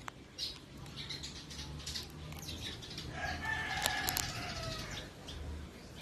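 A rooster crowing once in the background, about three seconds in, a call of a second and a half that falls slightly at its end. A few brief clicks and rustles sound nearby.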